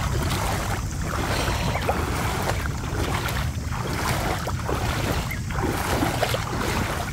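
Feet wading and splashing through ankle-deep floodwater, a sloshing step about once a second, over a steady low rumble.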